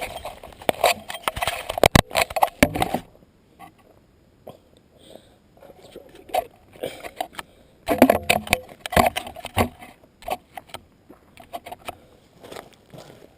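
Irregular clicks, knocks and rustles in two clusters, one in the first three seconds and one around eight to ten seconds in, with quieter gaps between: close handling noise and movement.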